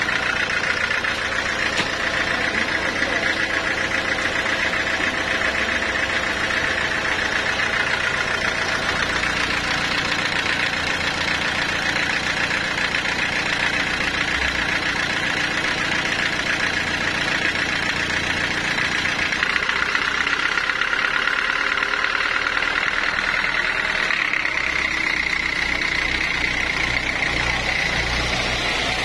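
Band sawmill running steadily as its blade saws a large log, a constant machine drone with a high whine over it; the whine shifts slightly about two-thirds of the way through.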